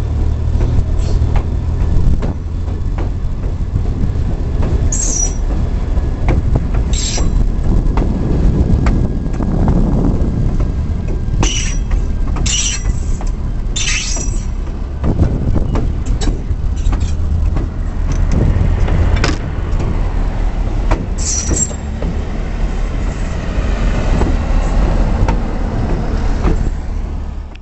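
EMD GP9 diesel-electric locomotive with its 16-cylinder two-stroke 567 engine, heard aboard while the train is moving: a steady low rumble of engine and wheels on rail. Brief high squeals cut through it several times.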